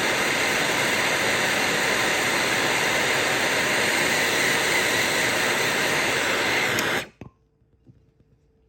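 Heat gun blowing steadily while heating the aluminium cylinder to loosen a seized head stud, then switched off sharply about seven seconds in.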